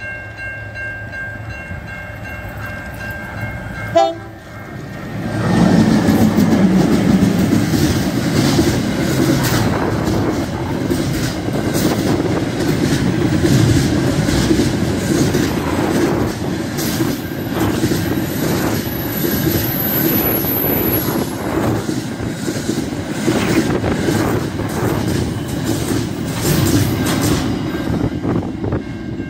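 Level crossing bells ringing as a freight train comes up, with a short loud blip about four seconds in. From about five seconds in the locomotive passes close and the wagons roll by with a loud rumble and steady clickety-clack of wheels over rail joints, covering the bells, and a thin high squeal for a few seconds midway.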